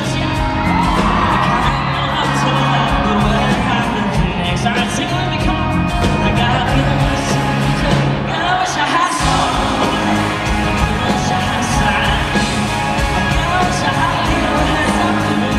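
Live rock-leaning country band playing loud with a male lead vocalist singing, captured from the audience, with fans whooping and cheering. The bass and drums drop out briefly just before nine seconds in and come straight back.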